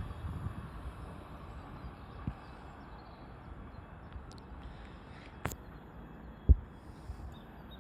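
Low rumble of a DB class 425 electric train fading away in the first second, then a faint outdoor background with a few sharp knocks, the loudest about six and a half seconds in.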